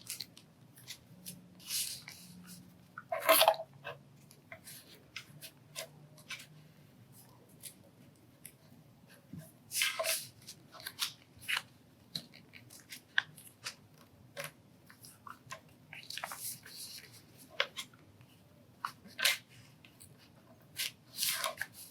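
A square of origami paper being flipped, folded and creased by hand: scattered crinkles and rustles of stiff paper, with a few louder crackles about 3 s and 10 s in and near the end.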